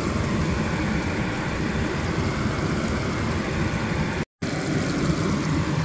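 Lemon chicken simmering in a pan of sauce, bubbling and sizzling over a steady low rumble. The sound drops out for a moment about four seconds in.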